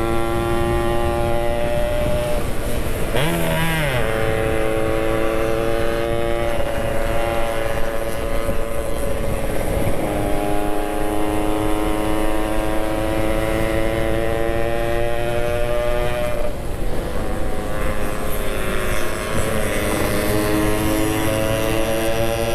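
Yamaha RX-King's two-stroke single-cylinder engine under way on the road, its note climbing steadily in pitch, dropping back a few times and climbing again. Wind rumbles over the microphone throughout.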